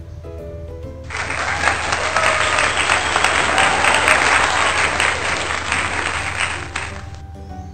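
Applause of a crowd clapping, starting suddenly about a second in and cutting off sharply near the end, over background music.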